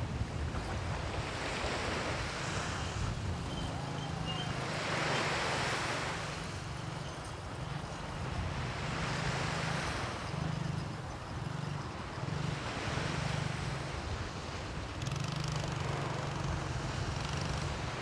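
East Sea surf breaking and washing up on the beach, a wave swelling up about every three to four seconds, five in all. A low steady hum runs underneath.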